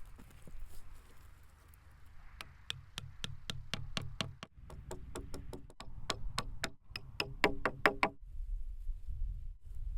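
A rapid run of sharp knocks, about three or four a second, starting a couple of seconds in and stopping about two seconds before the end; the later knocks ring slightly.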